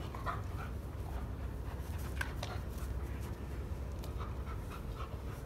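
A dog pants faintly and moves about as it grips a rubber Kong toy, with a few short, soft noises scattered through.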